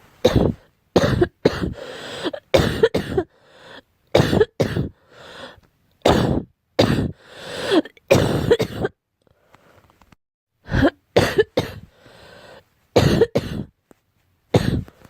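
A girl coughing over and over, short harsh coughs coming in bunches of two or three, with a short pause about nine seconds in before the coughing starts again.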